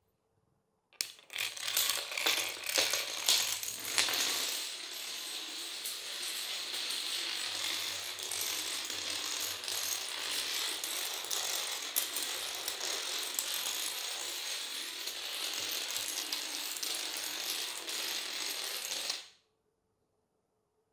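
Long chains of toy dominoes toppling in a dense, rapid clatter of small clicks. It is louder and more uneven over the first few seconds, then runs on as a steady patter until it stops abruptly near the end.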